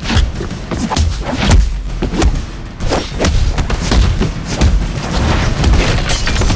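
Rapid string of heavy punch and body-blow impact sound effects, several hits a second, each with a deep booming thud.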